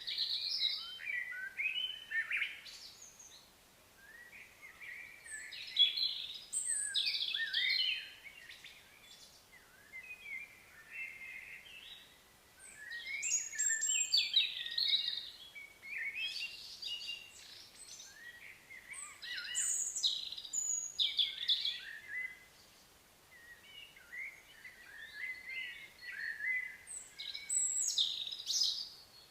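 Birds singing and chattering in bouts of a few seconds, about five bouts with short pauses between them.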